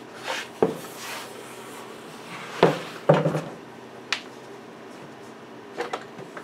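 Workshop handling noise at a wooden router table: a short brushing scrape, then several sharp knocks and clatters as a melamine-faced board and wooden pieces are set down on the tabletop, the loudest two close together near the middle.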